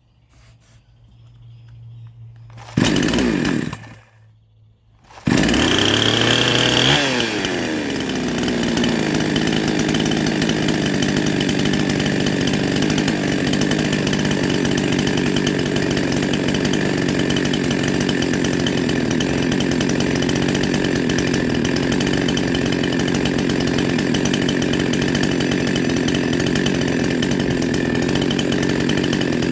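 Two-stroke engine of a rebuilt 52cc Chinese chainsaw fitted with a 62cc crank catches for about a second and dies. About five seconds in it starts, revs up high, then drops back and runs steadily. It has just been struggling to pick up fuel.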